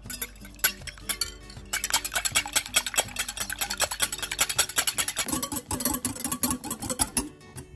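A kitchen utensil clinking rapidly and repeatedly against a bowl or pan in quick stirring strokes, starting about two seconds in, over soft background music.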